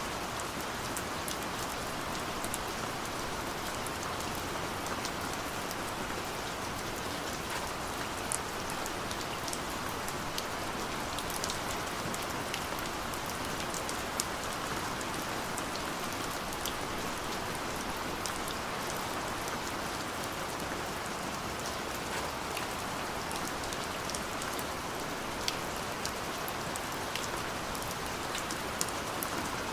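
Steady rain falling, an even hiss with scattered close drop ticks.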